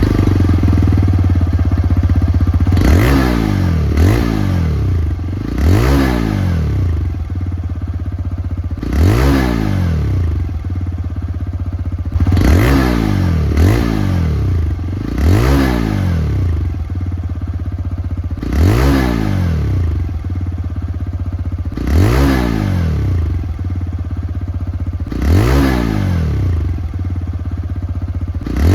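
TVS Raider 125's single-cylinder 125 cc engine idling at the exhaust, blipped about a dozen times: each quick rev rises in pitch and drops straight back to idle.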